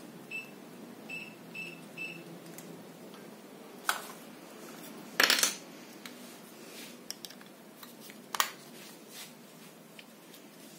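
Four short high beeps within about two seconds, the TV's key-press beeps as its input menu is stepped down to HDMI2 and selected. These are followed by a few sharp clicks and a louder short clatter about five seconds in.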